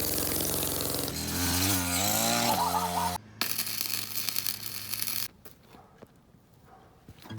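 A power tool works the steel railroad rail, its motor pitch dipping and rising under load. It breaks off briefly, then stops about five seconds in.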